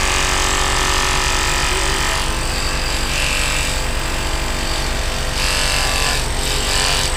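Mini excavator's diesel engine running steadily at working speed, with hydraulic whine, while its hydraulic drive head turns a steel pier shaft into the ground.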